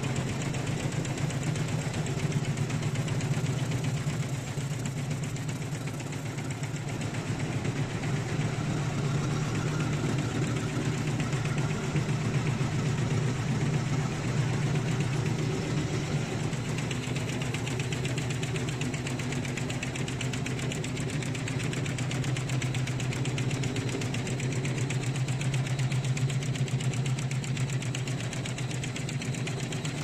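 SGE2320EL high-speed raschel warp knitting machine with latch needles, running at speed: a steady, rapid mechanical clatter over a low hum.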